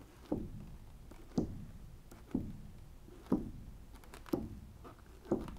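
A paint-covered balloon dabbed onto a wet acrylic-painted canvas and lifted off: six soft taps about a second apart.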